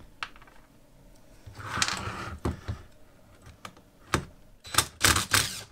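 Small metal parts and tools being handled on a wooden workbench: scattered light clicks and clatter, a short scrape about two seconds in, and a quick run of louder knocks near the end.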